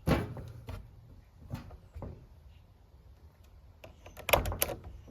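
Hands working clear plastic tubing onto the metering valve ports: a sharp knock at the start, a few faint clicks, then a short cluster of louder knocks and rattles near the end.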